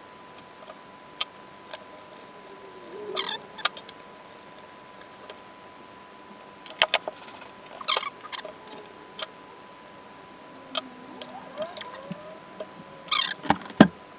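Hands handling wiring and small plastic parts: scattered sharp clicks and taps, short rustles and a few brief scraping slides, over a faint steady high whine.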